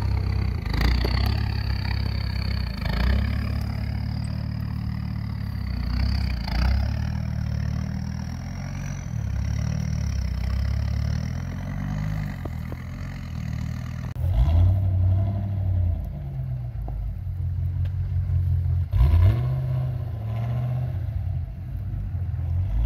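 Land Rover Defender Td5 five-cylinder turbo-diesel engine pulling at low speed over rough ground, its revs rising and falling, with a thin high whine that slowly rises in pitch and a few knocks. About 14 seconds in the sound changes to another Land Rover diesel working off-road, its engine note surging up and down.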